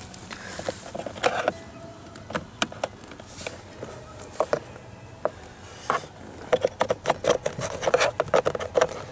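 Handling noises: a run of sharp plastic clicks, scrapes and rustles as a diagnostic reader's plug is fitted into the OBD port under a car's dashboard. They grow busiest in the last three seconds.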